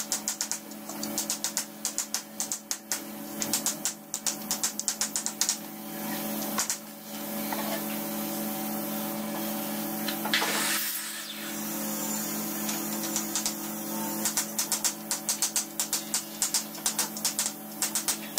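A small hammer rapidly tapping nails into an aluminium sliding-door track on a wooden strip, several light strikes a second. The tapping stops for several seconds in the middle and starts again near the end.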